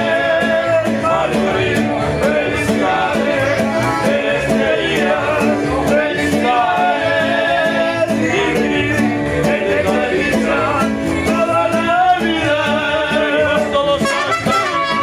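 Mariachi band playing a song: wavering melody lines with vibrato, voice or violins, over a steady strummed rhythm of guitars and bass.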